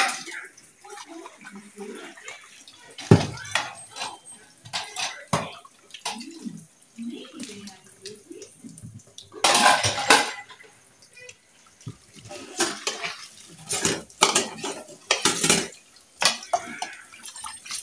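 Dishes being washed by hand at a stainless steel kitchen sink: tap water running while plates and cutlery clink and knock against each other and the sink, with a louder stretch of clatter about ten seconds in.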